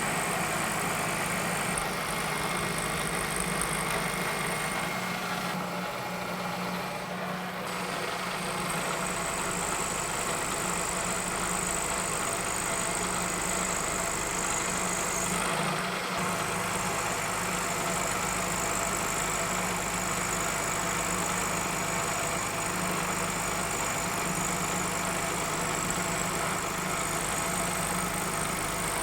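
Milling machine running steadily as it cuts a keyway in a shaft held in the vise: a constant machine hum with a thin high whine above it.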